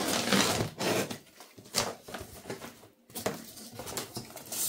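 A cardboard shipping box being opened by hand: a dense rustle as the flaps are pulled apart, then scattered scraping and rustling of cardboard and a loose plastic packing strap, with a short pause about three seconds in.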